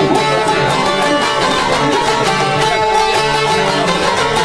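Several long-necked Albanian lutes (çifteli and sharki) plucked together, playing a steady, continuous folk tune.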